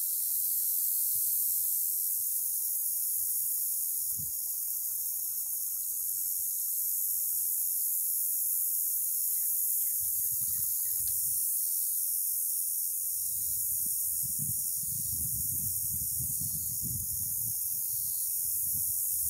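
A steady high-pitched hiss throughout, with a few faint chirps about ten seconds in. An irregular low rumble joins in the last third.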